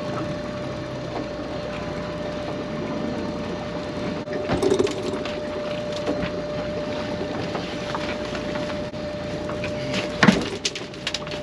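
Small fishing boat's machinery running with a steady whine over a haze of wind and water noise, with a couple of sharp knocks on deck, the second near the end.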